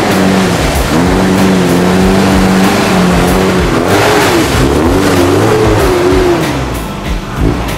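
Off-road 4x4's engine revving up and down as it pushes through a muddy bog, its pitch rising and falling repeatedly, with mud and water splashing from the spinning wheels.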